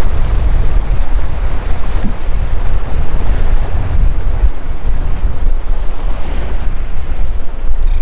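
Steady wind buffeting the microphone, with waves washing and splashing against the rocks of a jetty underneath.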